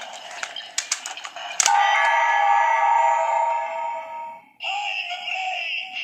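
Bandai DX Ziku-Driver toy belt with the Ohma Zi-O Ridewatch being worked for its finishing move: a run of sharp plastic clicks, then about a second and a half in a loud electronic sound effect with steady tones from the toy's small speaker. After a brief gap a further loud toy sound plays near the end.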